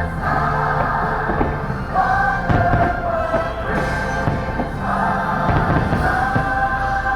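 Christmas fireworks-show soundtrack: orchestral music with a choir singing held notes, heard over outdoor speakers, with a few dull thumps underneath partway through.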